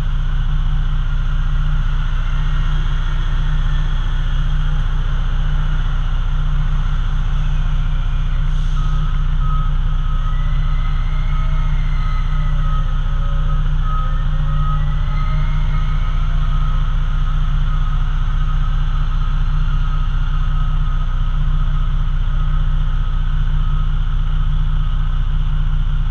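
A B-double semi truck's engine runs steadily during tipping, heard from inside the cab. A steady high-pitched tone comes in about nine seconds in, and a whine rises and falls in pitch around the middle.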